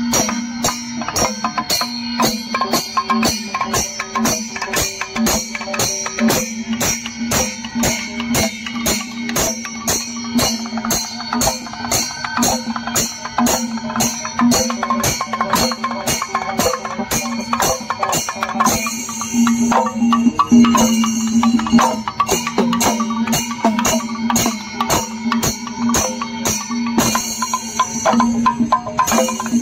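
Festival percussion ensemble of drums and cymbals beating a steady rhythm of about two to three strokes a second, with a steady held note underneath.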